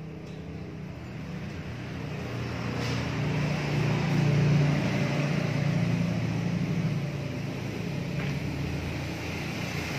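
An engine running steadily, growing louder over the first few seconds and then holding.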